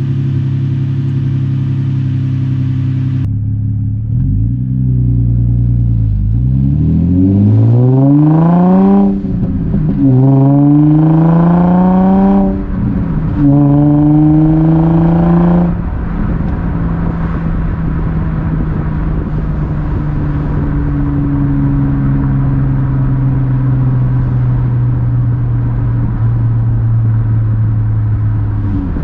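Infiniti G35's VQ35DE V6 through a muffler delete with the stock resonator kept, idling, then revved three times, each rev climbing and held for a couple of seconds before dropping back to a steady idle. Loud.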